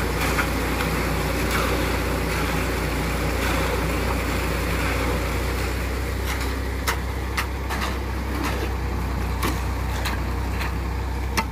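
A motor engine running steadily with an even low drone. It is most likely the site machinery of a road concrete pour, with scattered sharp knocks and clicks over it.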